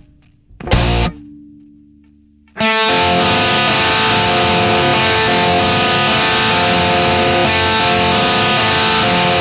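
Background rock music with distorted electric guitar: a single loud chord hit about a second in that rings out and fades, then a full, dense guitar riff from about two and a half seconds on.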